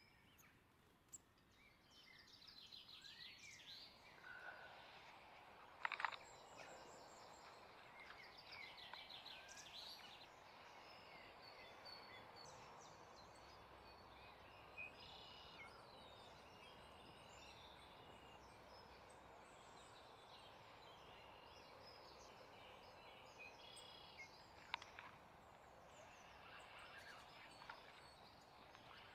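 Faint outdoor ambience with scattered bird chirps and calls. A few sharp clicks stand out, the loudest about six seconds in.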